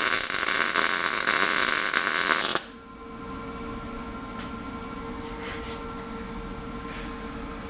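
Welding arc from a Lincoln 210MP welder crackling as a bead is run on a steel patch plate over a cracked steering bracket, cutting off abruptly about two and a half seconds in. A steady low hum remains after the arc stops.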